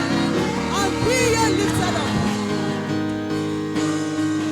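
Worship music: steady sustained chords, with a voice singing or chanting over them during the first half.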